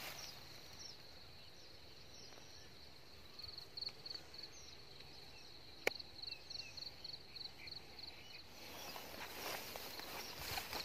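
Insects chirping in a steady high trill that breaks into quick repeated pulses from about three seconds in, with footsteps rustling through dry grass at the start and again near the end. A single sharp click sounds about six seconds in.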